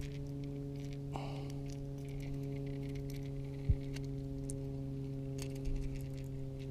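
Faint clicks and rustles of hands handling a small bass and a topwater lure, with one sharp thump about three and a half seconds in, over a steady low hum.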